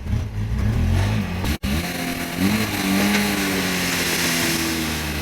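Excavator diesel engine revving, its pitch rising and falling, then holding at a steady higher speed. A sudden brief break in the sound comes about a second and a half in.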